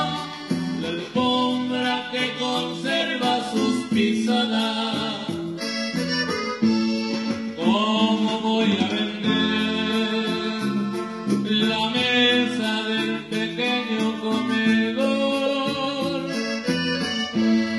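Norteño band music led by a button accordion playing the melody over guitar, bass and drums in a steady rhythm.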